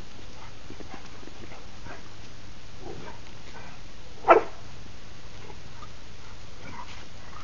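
A pit bull barks once, short and loud, about four seconds in, as it goes after a traffic cone held above it. The rest is faint scuffs over a steady background hum.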